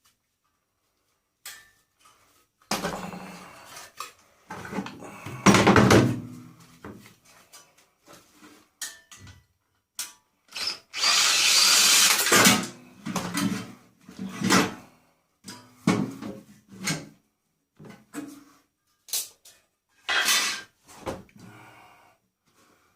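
Handheld power drill run in short bursts while a microwave oven is taken apart, with irregular knocks and clatter of its metal parts. The longest drill run lasts about a second and a half, about halfway through.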